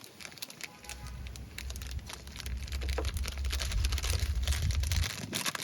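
Plastic packaging crinkling and rustling as a toy package is opened by hand, with a low rumble of handling from about a second in until near the end.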